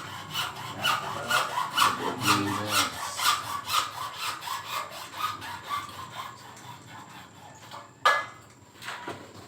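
Hand saw cutting with steady back-and-forth strokes, about two a second, fading out after about six seconds. A single sharp knock comes near the end.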